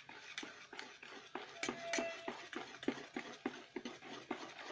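Wire whisk beating thick rice-flour idli batter in a steel bowl, an even run of wet strokes about three a second, mixing in the Eno just added to leaven it.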